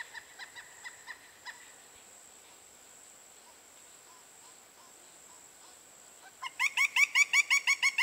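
Pileated woodpecker chick calling from its nest cavity: near the end, a loud, rapid series of about a dozen short down-slurred notes in under two seconds. Fainter evenly spaced notes come at the start, over a steady high insect drone.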